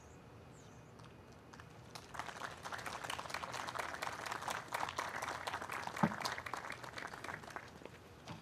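Small crowd applauding. Clapping starts about two seconds in and dies away near the end.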